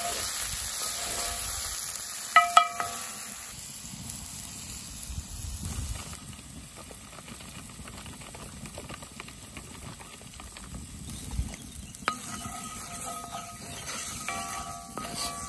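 Sliced mushrooms sizzling in a cast-iron skillet as they cook down. The sizzle is stronger at first and drops to a quieter, steady frying sound about six seconds in, with two sharp knocks about two and a half seconds in.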